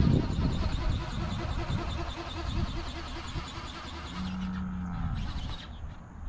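Radio-controlled flapping-wing ornithopter flying overhead: its motor and wing drive make a mechanical whir with a quick, even flapping beat, fading out about four seconds in. Crickets chirp near the end.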